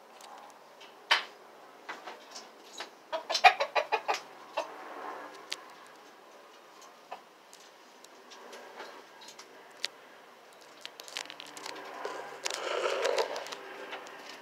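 Roosters clucking, with a quick run of sharp taps about three seconds in and a longer, louder call near the end.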